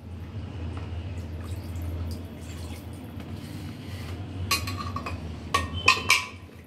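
Steel ladle in an aluminium pressure cooker of keema and water: soft liquid sounds at first, then from about four and a half seconds in, a run of sharp clinks and scrapes of the ladle against the cooker as the mixture is stirred.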